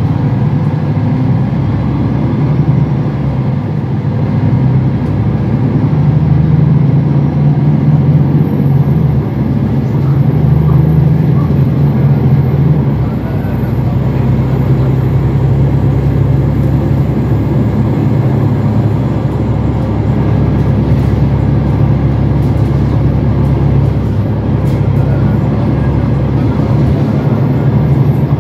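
Mercedes-Benz Citaro city bus under way, heard from inside the passenger cabin: a steady engine drone with road noise. The engine note shifts about halfway through.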